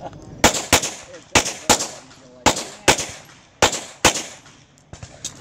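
Pistol fired in eight shots, two quick shots at a time, four pairs about a second apart: double taps on each target of a practical-shooting stage.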